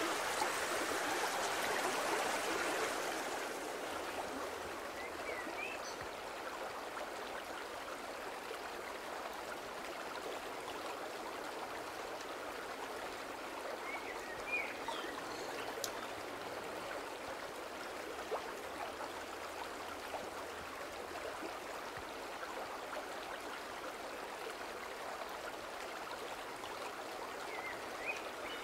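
Fast mountain stream rushing in small cascades between mossy boulders: a steady hiss of white water, a little louder for the first few seconds. A few faint, short high chirps sound over it.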